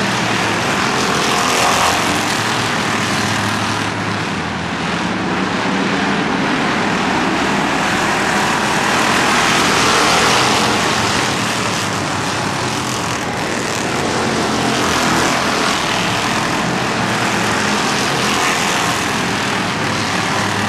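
A pack of Thunderstox stock cars racing, their engines running hard at speed. The sound swells and fades as the field laps, loudest about ten seconds in as cars pass close.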